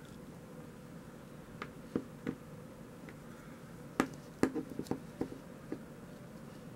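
A hard plastic action figure being handled, its limbs and joints clicking and tapping as they are moved. Scattered sharp clicks, the loudest about four seconds in, followed by a quick run of several more.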